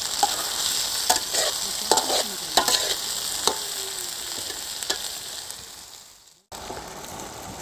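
Chicken pieces and sliced onions sizzling in hot oil in a steel karahi. A metal spatula scrapes and clinks against the pan as they are stirred. The sizzle fades out about six seconds in.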